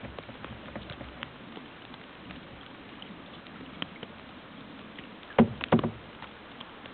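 Canoe paddle knocking against the hull in a quick cluster of loud knocks about five and a half seconds in, over a steady hiss with faint scattered ticks.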